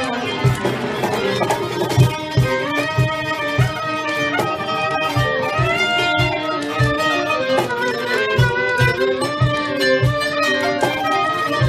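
Instrumental passage of Turkish fasıl music: a violin plays a sliding melody over plucked oud and cümbüş, with a steady low beat about twice a second.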